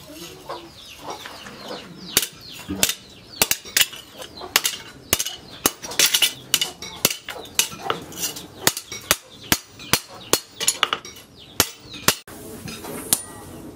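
Hand hammer striking a steel cleaver blank, cut from a tractor disc, on a round steel post anvil. A steady run of ringing metallic blows, about two to three a second, starting about two seconds in.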